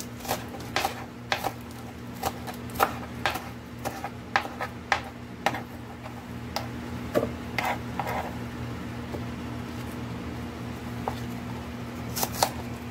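Knife chopping pak choy on a plastic cutting board: irregular knocks of the blade on the board, frequent in the first half, sparser later with a quieter stretch, then a quick run of cuts near the end. A steady low hum runs underneath.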